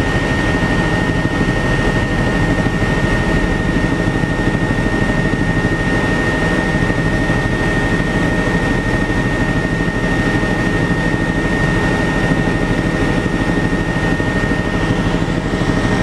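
Helicopter engine and rotor noise heard on board in flight: a loud, steady drone with one high, unchanging whine over it.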